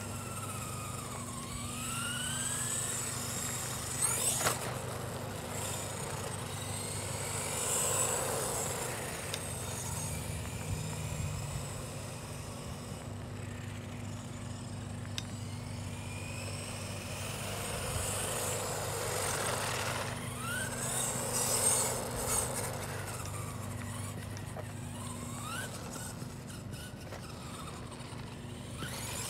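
HBX Vanguard 903 1/12-scale electric RC truck driving on pavement: its motor whines up and down in pitch as it speeds up and slows, and tyre noise swells as it passes, twice. A steady low hum runs underneath.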